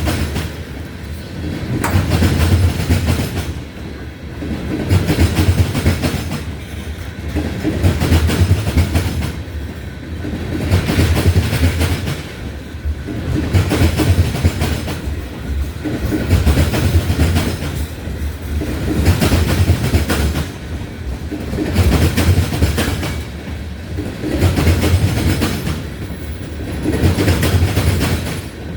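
Railroad tank cars of a Union Pacific ethanol train rolling past, their wheels clacking over the rail joints. The sound swells and fades about every two seconds as each car goes by.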